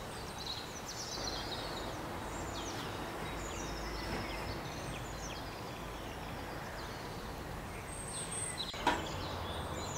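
Quiet outdoor background with faint birdsong: scattered short high chirps and whistles over a low steady rumble, with a faint tap near the end.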